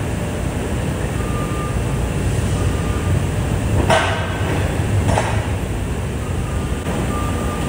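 Steady low rumble of forklift and plant machinery, with two sharp clatters about four and five seconds in: pallets knocking as the forklift handles them.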